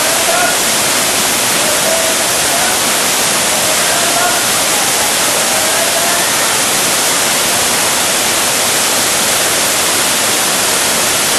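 Waterfall pouring down, a loud, steady, unbroken rush of water.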